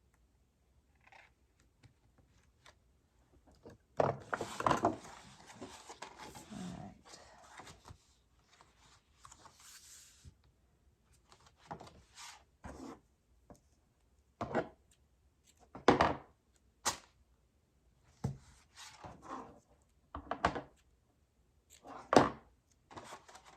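Paper and cardstock being handled on a craft table: a stretch of rustling and sliding a few seconds in, then a string of separate short knocks and taps as pieces are set down and pressed.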